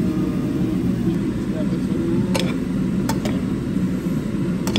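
Metal tongs clicking against a wok four times as noodles are tossed, over a steady low hum.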